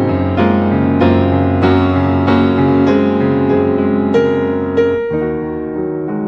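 Background piano music, soft and slow, with notes struck at an even pace and a change of chord near the end.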